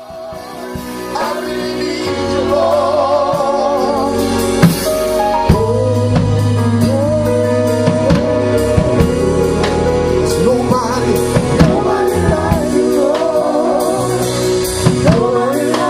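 Gospel music: a singer's voice with vibrato over held instrumental chords and a drum kit, fading in over the first couple of seconds.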